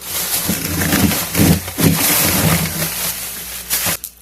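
Frozen plastic food packages rustling and crinkling loudly as they are dug through and moved around in a chest freezer. The noise stops abruptly near the end.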